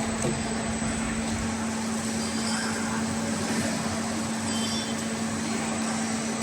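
CNC arch-bending machine running, a steady mechanical noise with a constant hum; the deepest rumble falls away about a second and a half in, and a sharp click comes at the end.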